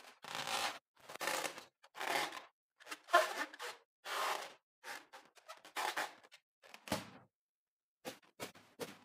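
A slime-filled rubber balloon squeezed and kneaded by hand, giving about eight squelches roughly one a second. A run of shorter, quieter crackles follows near the end.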